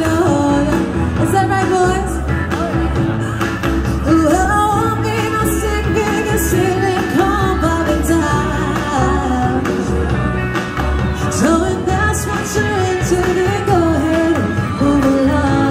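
Pop song with a singer over a steady bass.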